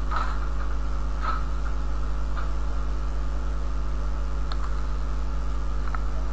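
Steady electrical hum and hiss of the recording chain, with a few faint, scattered ticks.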